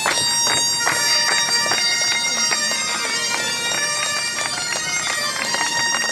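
Bagpipe dance tune, a melody of quick changing notes.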